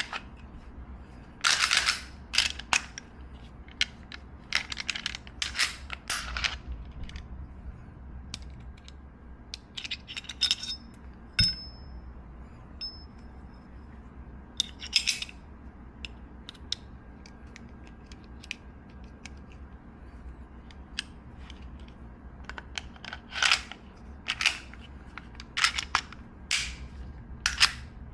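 Smith & Wesson M&P Shield polymer-frame pistol being field-stripped and reassembled: sharp clicks and clacks of the slide, barrel and recoil spring assembly being worked and seated, coming in clusters with pauses between. A brief high metallic ring sounds about eleven seconds in.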